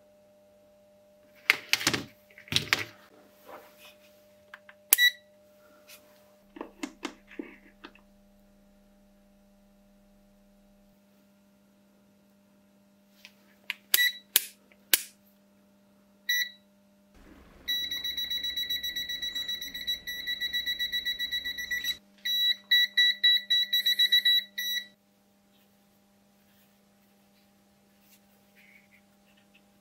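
GVDA GD123 digital multimeter beeping: short single beeps as its rotary dial is turned, then one long unbroken beep of about four seconds, followed by a run of quick beeps lasting a few seconds. Handling clicks and knocks of the meter and cells come before the beeps, under a steady low hum.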